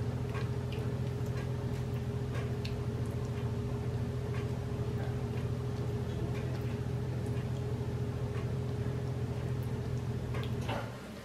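Silicone spatula spreading a thick creamy mixture in a glass baking dish, with scattered small irregular clicks as it scrapes and taps the glass. Under it runs a steady low hum that cuts off suddenly near the end.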